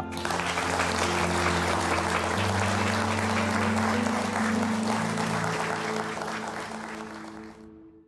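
Audience applauding, over background music with sustained low chords; both fade out near the end.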